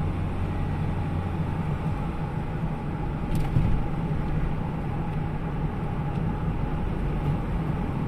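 Car driving on a city road: steady low rumble of engine and tyres with road noise, and a brief tick about three and a half seconds in.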